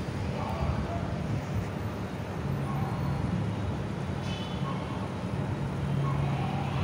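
Steady low background hum with faint distant voices.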